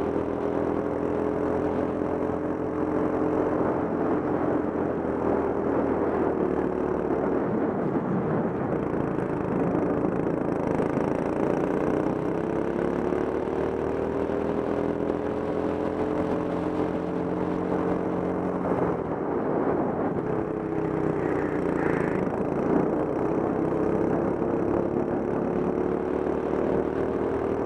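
Go-kart engine running hard under the driver, its pitch falling and climbing again several times as the kart slows and speeds up around the lap.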